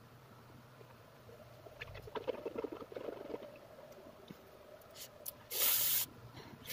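Mouth sounds of eating spicy instant noodles: faint wet clicking and smacking of chewing, then, about five and a half seconds in, one short loud hiss of breath drawn or blown through the mouth.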